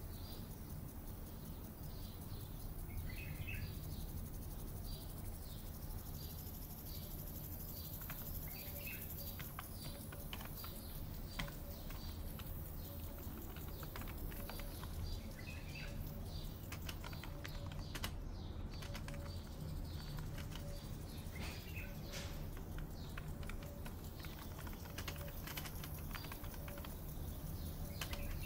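Layered office-and-park ambience: a computer keyboard typing in bursts through the middle, and birds chirping over and over, over a steady low hum.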